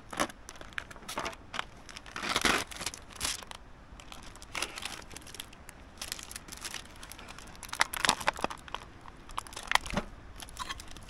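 Food packaging being handled and opened by hand: irregular crinkling and tearing, broken by scattered sharp clicks and knocks.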